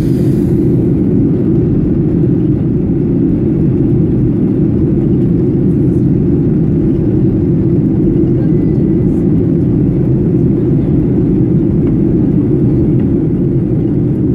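Cabin noise inside a Boeing 737 airliner: the jet engines and the airflow over the fuselage make a steady low rumble at a window seat during the descent to land.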